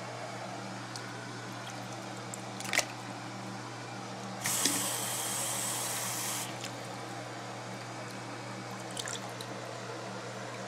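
Water in a sink splashing and sloshing around a submerged iPod, with a sharp splash a little under three seconds in and a loud rush of water for about two seconds midway. A steady low hum runs underneath.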